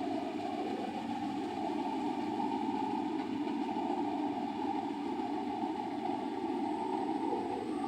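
Rice combine harvester running steadily, a constant engine and machinery drone.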